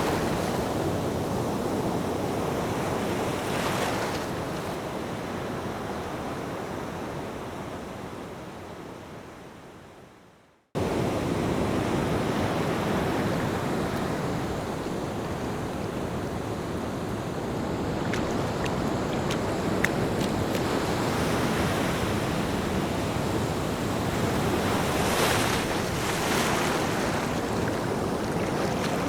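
Ocean surf washing in and out, swelling now and then. About a third of the way through it fades away to silence and then cuts straight back in at full level.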